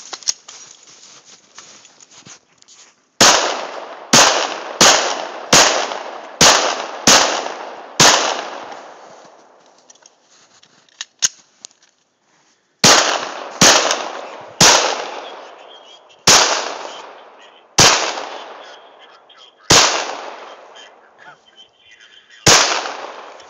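Fourteen gunshots in two strings of seven, each shot followed by a long fading echo. The second string, beginning about halfway through at a slower, uneven pace, is from a Glock 17 9mm pistol.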